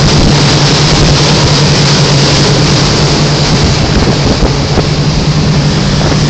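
Motorboats running at speed across open water: a steady low engine drone under a loud, even rush of wind and water.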